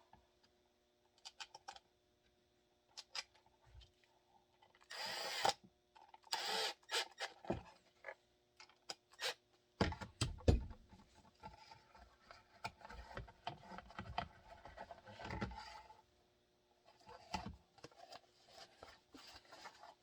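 Scattered clicks, taps and short scraping bursts of tools and screw hardware being handled as a plastic gun holster is screwed together, busiest about halfway through.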